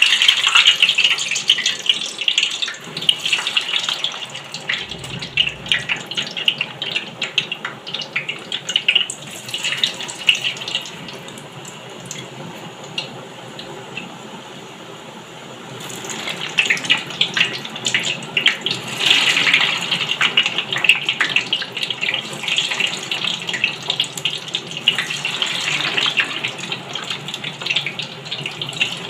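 Raw potato fries deep-frying in hot cooking oil, a dense sizzling crackle. It eases off for a few seconds partway through, then sizzles loudly again.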